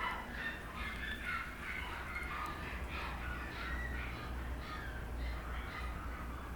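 Chihuahua puppy whining and yelping in a string of short, high-pitched cries, several a second, over a low steady hum.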